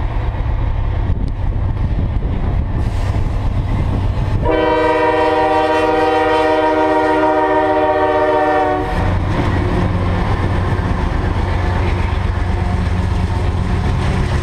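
CSX freight locomotives rumbling as they approach, then sounding a steady multi-note air horn chord for about four seconds, cut off as the locomotives pass. Afterwards, double-stack intermodal well cars rolling by with a steady low rumble of wheels on rail.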